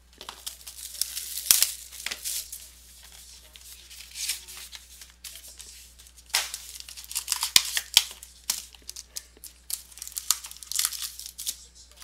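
Plastic wrapping being torn off a box of trading cards and crinkled in the hands, in irregular rustling rips and crackles on and off throughout.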